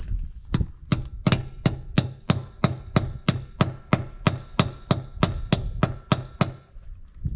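Hammer tapping a 20 mm socket onto a rounded-off wheel bolt head on a tractor's front wheel: about nineteen even blows at roughly three a second, each with a slight metallic ring, stopping just before the end.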